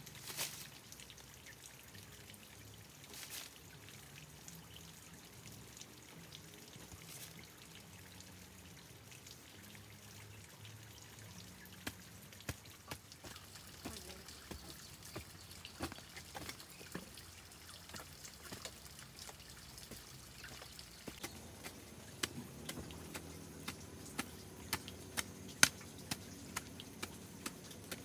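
Faint dripping and trickling water with scattered small ticks that come more often in the second half.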